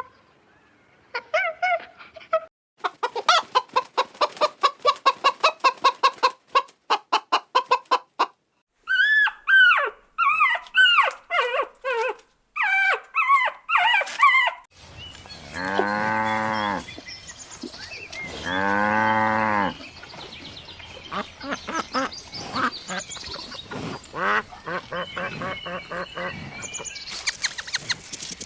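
A sequence of farm animal calls. Quick, repeated poultry-like calls and gliding honks come first, then two long, low cow-like moos about two seconds each near the middle, then a busier mix of barnyard calls.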